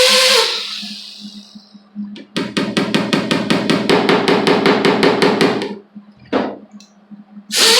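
A high-speed power tool whining down as it is shut off, then a fast, even run of sharp metallic strikes, about seven a second for some three seconds, on the repaired body panel; near the end the power tool starts up again with a loud whine.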